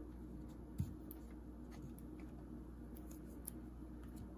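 Faint scattered clicks and taps of hockey trading cards being handled, a slightly louder one about a second in, over a low steady hum.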